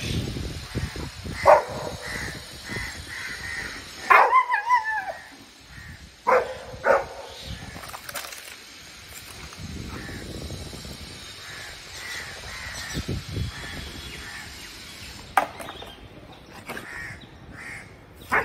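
Dogs barking up at a tree: a few sharp, separate barks, and about four seconds in a longer wavering, howl-like call. Fainter repeated bird calls run underneath.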